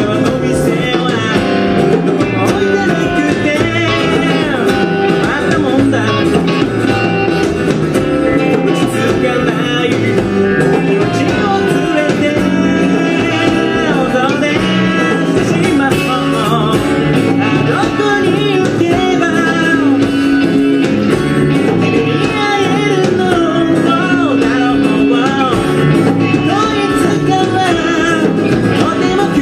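A live band playing a song: a man singing lead over strummed acoustic guitar and electric guitar, with bass and drums.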